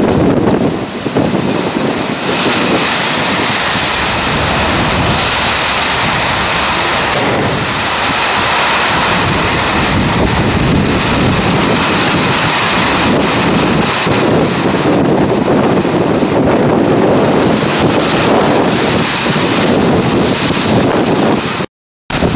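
Strong wind from a nearby tornadic storm rushing past and buffeting the microphone in a loud, steady noise. The sound drops out for a split second near the end.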